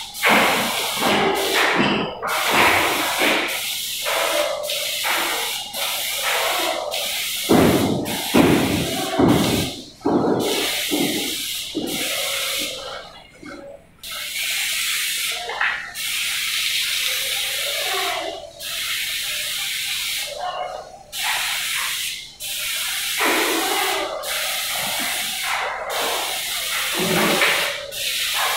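Paint spray gun spraying primer through a long wand: a steady hiss, cut by brief gaps about once a second as the trigger is let off and squeezed again.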